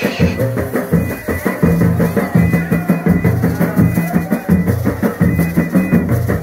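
Drum-led dance music: large hand-held frame drums beaten with sticks keep a steady beat over a deep, shifting bass line.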